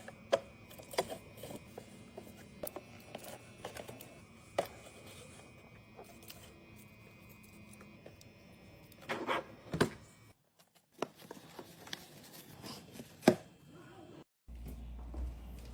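Scattered taps, clicks and knocks of containers and packaging being handled and set down while a fridge is restocked, with the loudest knock about 13 seconds in. A low steady hum starts near the end.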